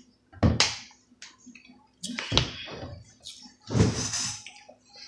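A plastic Sunny D juice jug handled right against the microphone: three brief scraping, sloshing bursts, the middle one with a dull knock.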